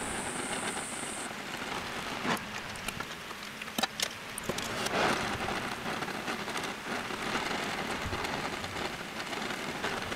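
Oxyacetylene torch flame hissing steadily as it heats small steel parts toward red heat before an oil quench for hot bluing, with a few sharp clicks and a brief louder swell of hiss about halfway through.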